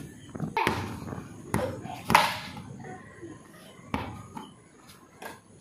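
A handful of sharp, spaced-out knocks from a ball game on a hard tiled floor: a small ball and broom-bats striking the tiles, with a child's voice briefly in between.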